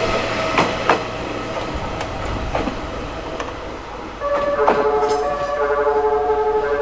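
JR East E001 series TRAIN SUITE Shiki-shima pulling away: its wheels knock over rail joints for the first few seconds. About four seconds in, its music horn plays a melody of stepped notes.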